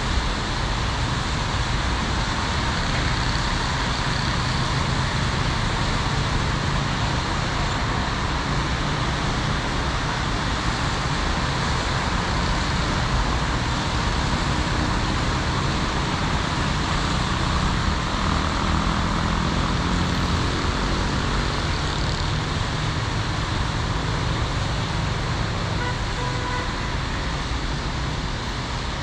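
Steady traffic noise from cars driving on a wet road.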